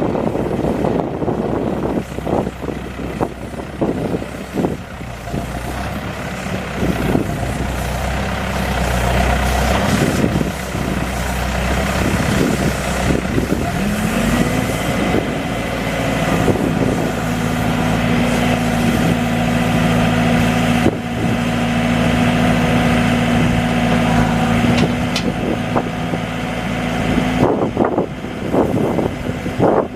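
Diesel engine of a Case 590 Super Series M backhoe running, with scattered knocks and clanks. About halfway through it revs up, holds a higher steady speed, and drops back near the end.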